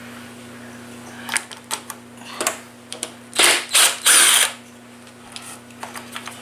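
Cordless drill/driver backing screws out of a leaf blower's plastic housing in three short bursts a little past the middle, after a few light clicks of tool and plastic being handled.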